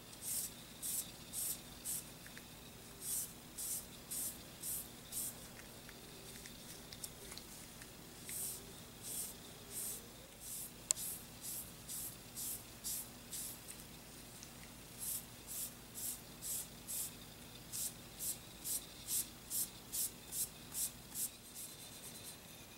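Cotton pad wet with nail polish remover rubbed back and forth over a Glock slide: soft swishing strokes about two a second, in runs with short pauses, as excess nail polish is wiped off the color-filled lettering. One sharp click about eleven seconds in.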